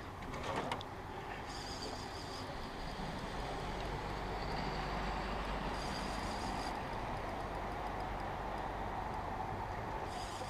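Steady rushing of river water, with a faint high whine that comes in briefly three times.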